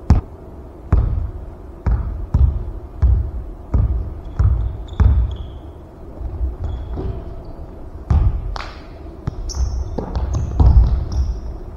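A basketball bouncing on a hardwood gym floor: a steady dribble of a bounce every half to three-quarters of a second, then a short lull and more scattered bounces near the end, with a few short high squeaks in between.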